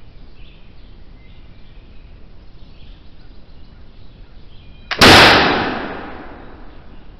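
A cut-down 1740 first pattern Brown Bess flintlock musket firing one black-powder shot about five seconds in. A short click of the lock comes a split second before the loud report, which rings out and dies away over about a second and a half.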